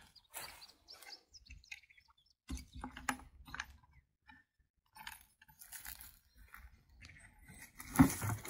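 Scattered rustling and light clicks and clinks of hands working in tall grass at a ground-level valve box, lifting its round lid off, with a louder knock near the end.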